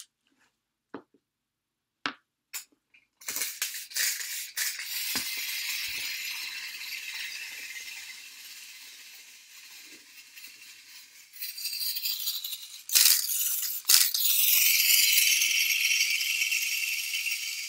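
Clockwork of a tin wind-up toy robot rattling as it runs: a few clicks first, then a steady high rattle that slowly fades. Two sharp knocks come near the end, and then the rattle starts up again, louder.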